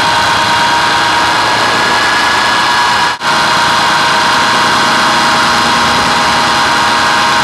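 Hurricane 550 radio-controlled helicopter's motor and rotor running steadily in flight, heard up close from the camera riding on it: a loud, even whine over rushing air noise. About three seconds in, the sound drops out for a split second.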